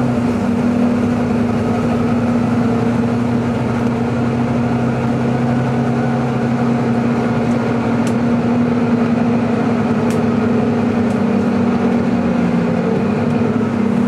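Volvo B9TL double-decker bus heard from inside the passenger saloon while under way: a steady whining engine and drivetrain note, the 'hoovering' sound. Near the end the pitch dips and then rises again.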